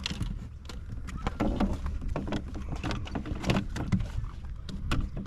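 Knocks and clatter on a Hobie PA12 fishing kayak over a steady low rumble of water and wind, with many sharp clicks of gear being handled.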